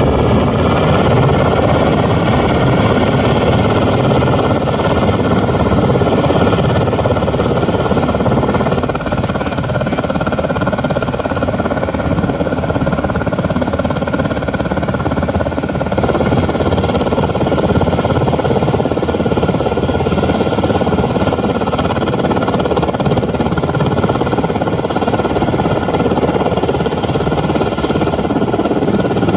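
Coast Guard MH-60 Jayhawk helicopter hovering, its rotor and turbine noise loud and steady, with a constant high whine over the rotor noise.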